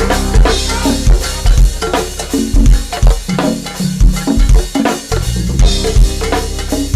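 Go-go band playing live: a driving drum-kit beat with bass drum and snare hits over heavy bass notes.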